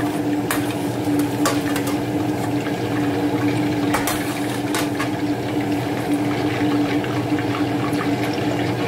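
Chicken pieces frying in a pot of hot oil, a steady sizzle, with a stainless steel slotted spoon clinking against the pot several times in the first half as pieces are lifted out. A steady low hum runs underneath.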